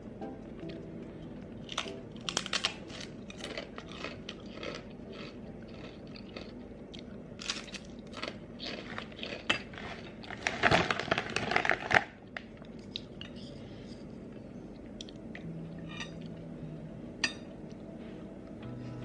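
Close handling sounds: scattered light clicks and knocks, with a loud stretch of crunching and crinkling about ten to twelve seconds in.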